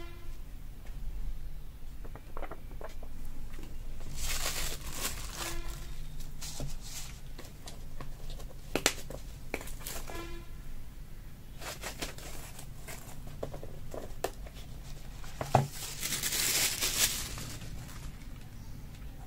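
Packaging being handled: plastic and paper crinkling and tearing in several bursts, with scattered clicks and taps.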